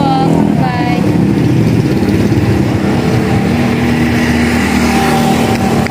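A vehicle engine running steadily at low revs, with a voice briefly in the first second.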